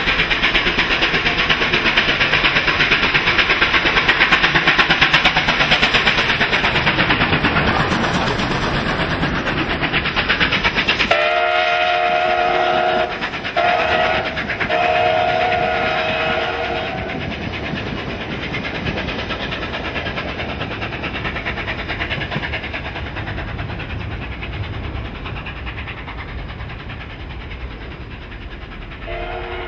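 Steam locomotive 3801 running with a train, a loud rumbling, fast-beating exhaust as it comes out of the tunnel. It then sounds its chime steam whistle in about three blasts, long, short, long. After that the train rolls away and fades, and one more whistle starts near the end.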